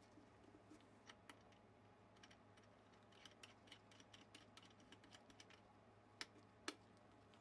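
Faint, irregular small clicks and taps of gloved fingers handling the wiring and a control's hardware on a semi-hollow guitar body, with two sharper ticks a little over six seconds in.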